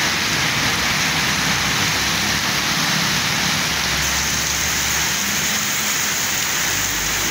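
Very heavy tropical downpour pouring onto a road and its standing water, a loud steady hiss. Vehicles drive past through the wet road, and a low engine rumble rises about four seconds in.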